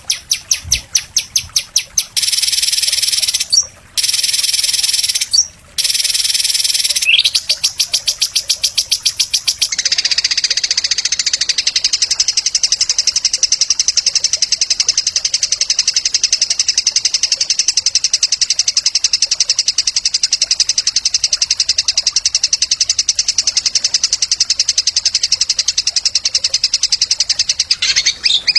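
Songbird singing a rapid, high-pitched trill of closely repeated notes. It is loud and harsh with two brief breaks for about the first ten seconds, then settles into a steadier, thinner trill.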